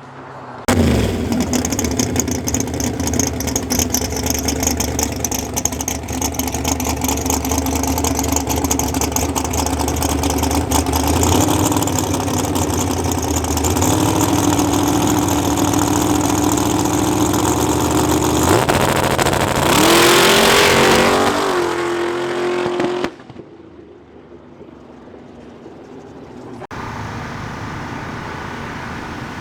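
Big-block Chevy V8 drag car running hard, its pitch climbing steadily and then rising sharply near the end, with a rush of hiss on top, before the engine sound cuts off suddenly to a much quieter background.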